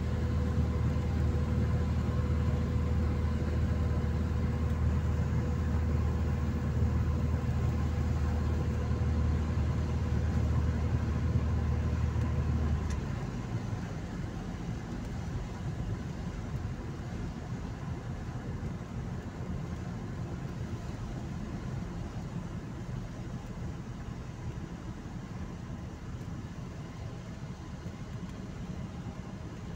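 Road noise inside a moving car on a wet road: a steady low drone of engine and tyres with a faint steady tone above it, which drops to a quieter, even hiss about thirteen seconds in.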